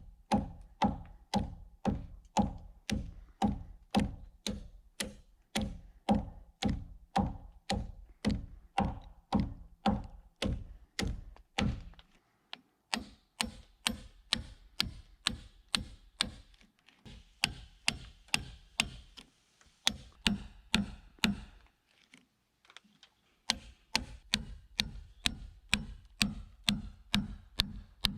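Steady, even blows of a hand tool striking wood, about two to three a second, each a sharp knock with a low thud, broken by a few short pauses.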